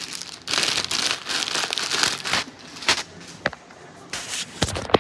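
Rustling, crinkling handling noise right against the microphone, with a few sharp clicks in the second half.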